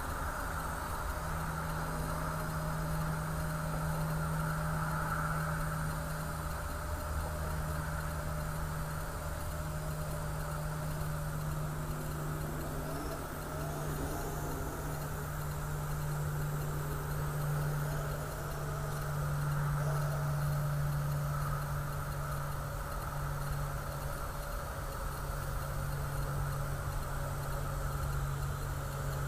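Parrot AR.Drone quadcopter's electric motors and propellers humming steadily in flight, the pitch wavering briefly a couple of times as the rotor speed changes.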